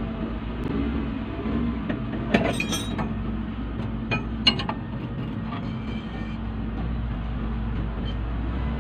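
A few sharp metallic clinks of hand tools against metal, a cluster about two and a half seconds in and two more around four seconds, over a steady low mechanical hum.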